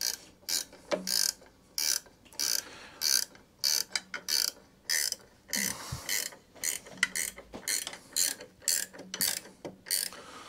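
Hand ratchet tightening a 10 mm bolt on a mower's belt guard: short bursts of pawl clicking repeated about one and a half times a second, one burst for each swing of the handle.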